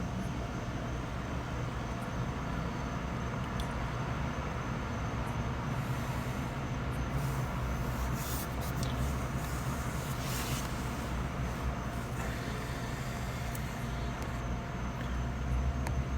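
Steady low rumble of road vehicles and traffic, with a few faint clicks.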